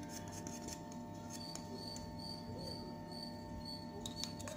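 Faint high-pitched chirping, as of a cricket, repeating about three times a second over a steady low electrical hum, with a few light clicks.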